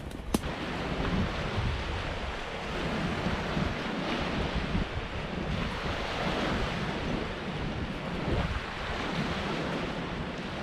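Wind buffeting the microphone outdoors: a steady rushing noise with an uneven low rumble, and a brief click just after the start.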